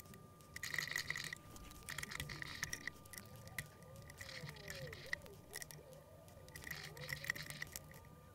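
Faint handling sounds: light clicks and scrapes of a small open-end wrench and hex key on the set screws of a mill stand's dovetail ways as they are tightened to take out play in the Z-axis.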